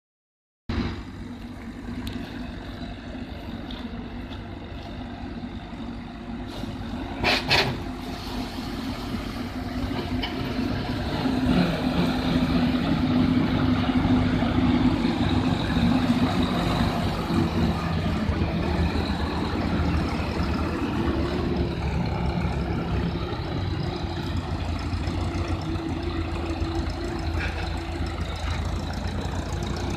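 Tractor engine and the big axial fan of a towed air-blast vineyard sprayer running steadily, getting louder from about ten seconds in. A brief double burst of noise comes about seven seconds in.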